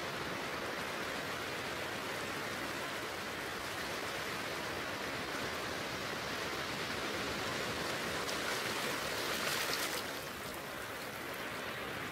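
A steady rushing hiss like a stream or rain. It swells brighter about eight seconds in and drops back suddenly near ten seconds.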